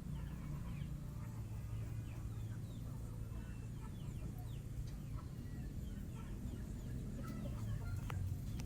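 Scattered short bird calls, fowl-like clucks, over a low steady rumble.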